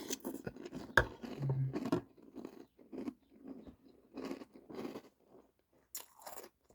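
Chewing a mouthful of Monster Mash cereal, with irregular crunches and a brief hummed "mm" about a second and a half in.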